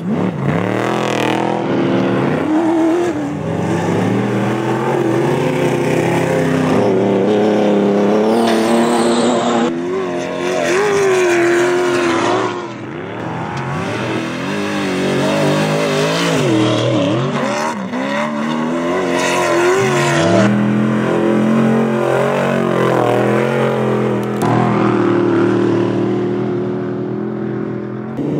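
Off-road desert race vehicles' engines revving hard as they pass one after another, the pitch repeatedly climbing and dropping with acceleration.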